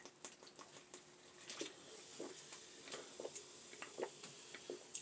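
Faint swallowing sounds and small clicks from a person drinking soda from a plastic bottle, in soft scattered bits.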